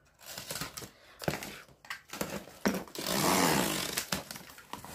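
A small box cutter slicing through the packing tape on a cardboard box, with scattered clicks and a longer scraping rustle of blade and cardboard about three seconds in.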